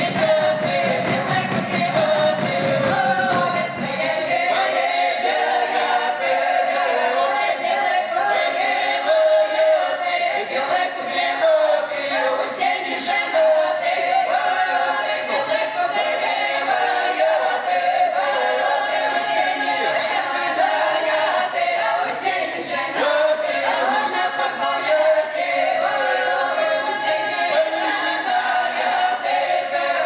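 Folk ensemble of mostly women's voices singing a cappella in several parts: a southern Russian karagod (round-dance) song from the Belgorod region. A burst of low noise runs under the singing for the first few seconds.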